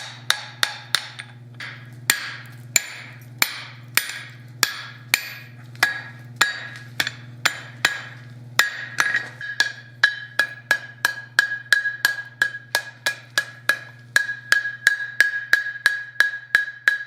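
Blacksmith's hand hammer striking hot steel bar on the anvil in steady, evenly spaced blows, about one and a half a second at first. About nine seconds in the blows quicken to about three a second, and each one leaves a ringing note from the anvil and hammer.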